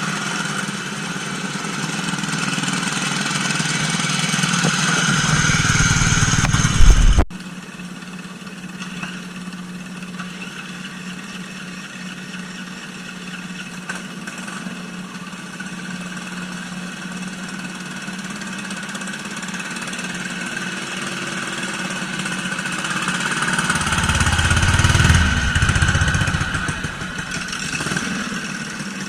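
Mud mower's small engine running under way on a trail, getting louder with a low rumble for the first several seconds, then cutting abruptly to a quieter steady run about seven seconds in. It swells again with more low rumble a few seconds before the end.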